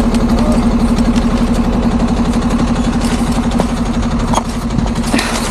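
Iveco Eurocargo expedition truck's diesel engine idling steadily with an even, pulsing rumble.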